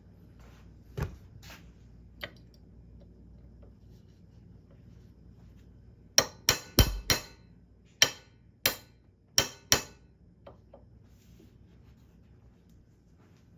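Small hammer tapping a pin punch to drive the bolt catch roll pin into an AR-15 lower receiver: sharp metallic taps, one about a second in, then a run of eight quick strikes over about four seconds.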